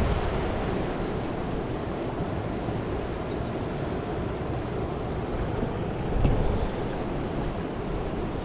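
Yoshino River water rushing steadily, with wind buffeting the microphone and a brief louder gust about six seconds in.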